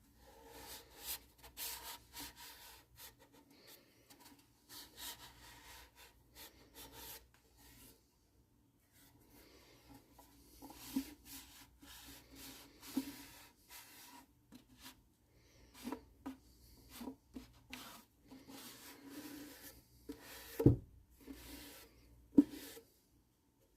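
A ukulele's wooden body being rubbed by hand with a shellac 'shine juice' finish, in irregular strokes with a brief pause partway through. Two sharp knocks near the end.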